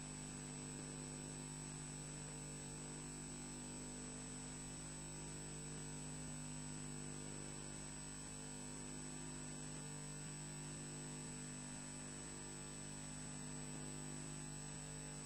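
Steady electrical hum and hiss, with a thin high whine held on one pitch, from a nest camera's audio line. It does not change.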